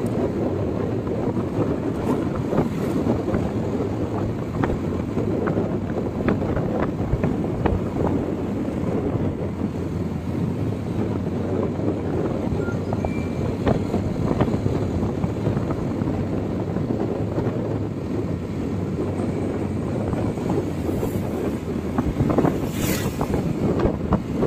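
Road noise of a moving vehicle with wind buffeting the microphone, steady throughout, with a brief sharp sound near the end.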